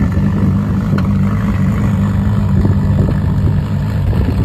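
Ferrari LaFerrari's 6.3-litre naturally aspirated V12 idling steadily and loudly, with a deep, even exhaust note.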